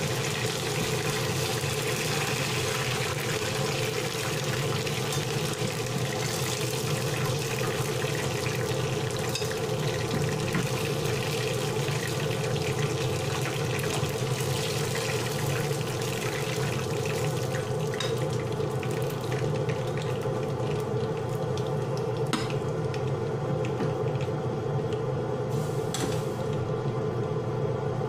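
Turmeric-marinated chicken pieces frying in hot oil in a pan, a steady sizzle that thins out in the second half as the pieces are lifted out, with a few sharp clicks of tongs against the pan. A steady low hum runs underneath.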